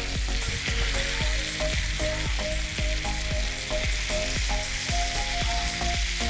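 Masala-marinated beef steak pieces sizzling steadily in hot butter in a non-stick pan, searing on their second side after being turned half-cooked.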